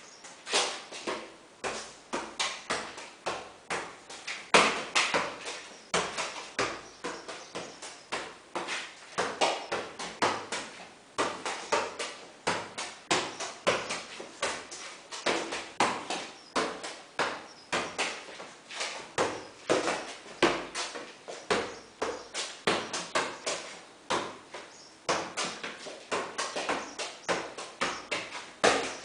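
A football being juggled: repeated thumps of foot and knee striking the ball, about two to three a second, echoing in a bare concrete room.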